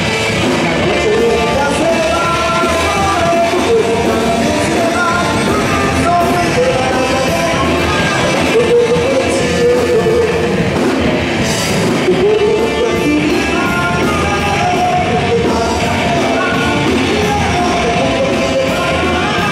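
Live rock band playing: a man sings into a microphone over electric guitar and drums.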